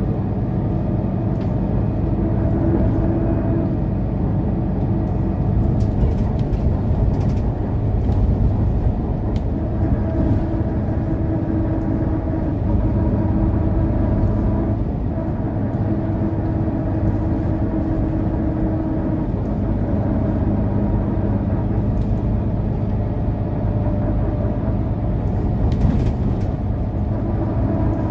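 Mercedes-Benz O530 Citaro Facelift city bus under way, heard from the passenger compartment: a steady engine drone with tyre and road noise, its engine tones fading and coming back now and then.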